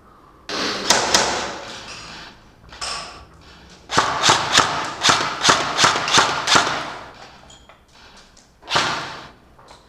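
Indoor airsoft skirmish: a run of sharp knocks and thuds, about three a second, between two short noisy bursts, one about half a second in and one near the end.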